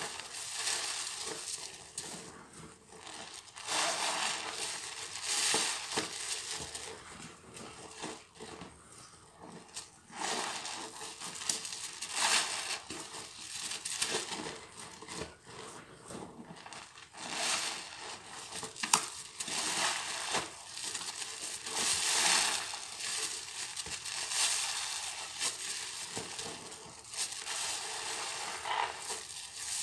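Soap-soaked sponges squeezed and squished by hand in thick suds: wet squelching with crackling foam, in repeated swells roughly every one to two seconds.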